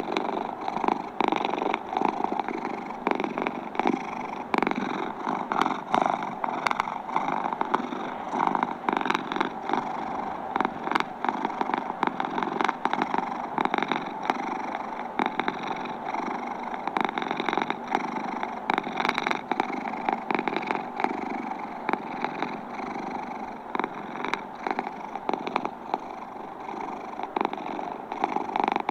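Domestic cat purring, steady and unbroken, a rapid fine pulsing that does not pause.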